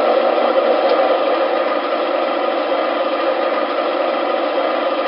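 Recorded diesel engine sound from an MTH Premier O-gauge BNSF ES44AC model locomotive, played through its small onboard speaker. It is a steady engine idle with no deep bass.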